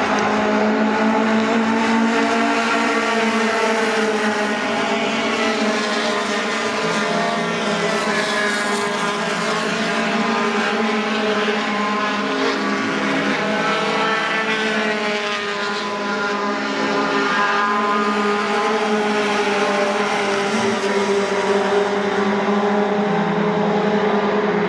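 Racing pickup trucks' engines running at race speed, several engines heard at once, their pitches rising and falling slowly as the trucks pass and change speed.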